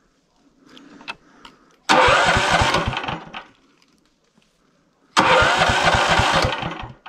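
Motor Sich walk-behind tractor's small engine being started twice: each attempt turns it over with rapid, regular firing pulses for about a second and a half, then dies away. The engine won't start.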